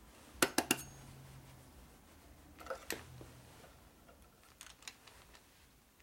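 Sharp metal clinks and taps of a screwdriver against a Harley shovelhead's points cover and its small screws: three quick clinks about half a second in, two more about halfway through, and fainter taps later.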